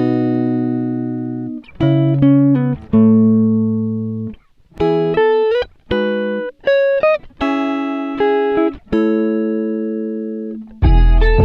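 Background music: a run of held chords, a new chord every second or two with short breaks between, and a deep bass coming in near the end.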